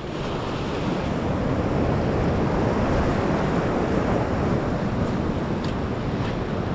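Sea surf washing over and breaking among intertidal rocks, a steady rush of water, with wind on the microphone.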